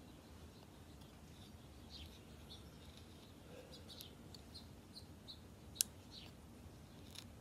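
Quiet hand whittling: a knife making short cuts and scrapes in a small wooden stick, with one sharp click about six seconds in. Faint bird chirps in the background.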